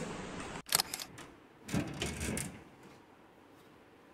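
Steady room noise that cuts off abruptly about half a second in, followed by a few sharp clicks and a duller knock as books are shifted along a bookshelf.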